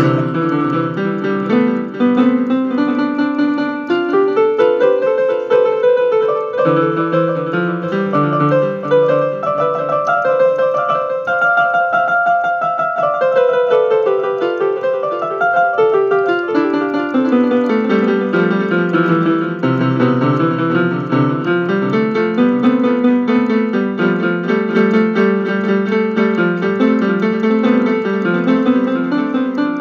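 Piano music playing steadily, with runs of notes that step up and down in pitch over lower chords.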